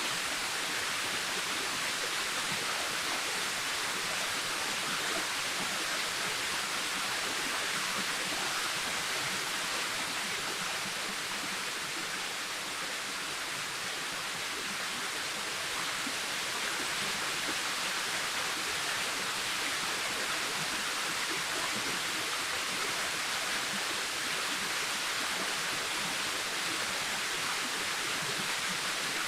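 Waterfall cascading steadily: a constant rushing hiss of falling water with no let-up.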